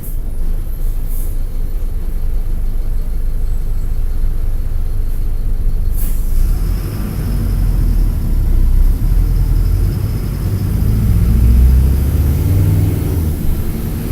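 Mercedes-Benz OF-1722M bus's OM-924 LA four-cylinder turbo diesel running, heard from inside the bus, with a short burst of air about six seconds in. After that the engine note gets louder, as the bus pulls away under load.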